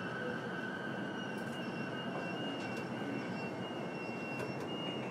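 Steady running hum of a stopped E233-series electric train, with a couple of faint high, steady whines over it and a few light clicks.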